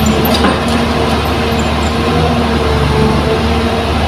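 Kobelco crawler excavator's diesel engine running steadily under load as the boom and bucket dig into loose soil, a low hum with a faint held whine over it.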